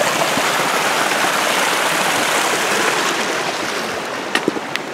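Mountain stream running over rocks: a steady rush of water that eases slightly towards the end, with a few sharp clicks near the end.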